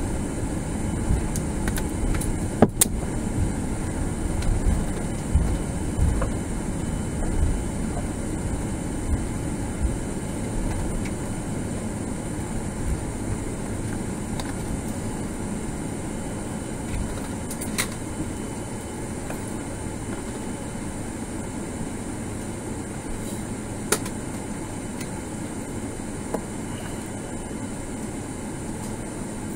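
Cabin noise of a Boeing 777-200ER rolling on the runway just after landing: a low rumble of wheels and engines that slowly fades as the aircraft slows, under a steady airflow hiss. A few sharp clicks or knocks are heard about three seconds in, and again near 18 and 24 seconds.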